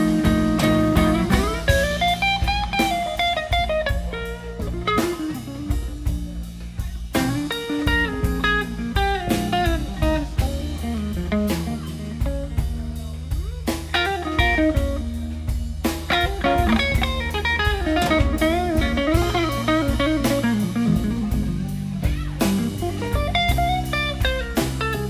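Instrumental break of a slow, bluesy song played live by a band: a lead guitar melody with bent, wavering notes over bass and drums.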